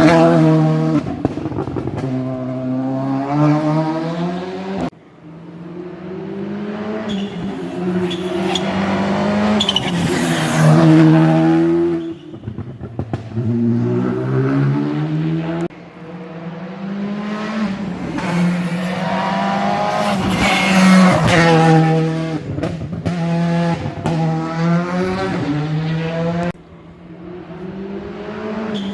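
Rally cars flat out on a special stage, engines revving up and dropping back through quick gear changes, with sharp cracks between shifts. The sound breaks off abruptly several times as one car's run gives way to the next.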